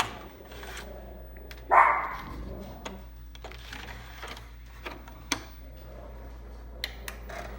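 Steady low hum from a running TRS-80 Model 4, with a few scattered sharp clicks and one louder short burst about two seconds in.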